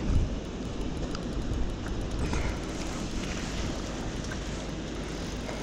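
Steady low rumble of wind and handling noise on a body-worn camera's microphone, with a short thump just after the start.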